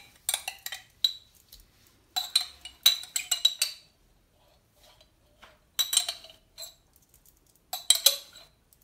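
A spoon scraping and clinking against the inside of a small glass jar as the last bits of pesto are dug out. The clinks come in four short flurries with quiet gaps between.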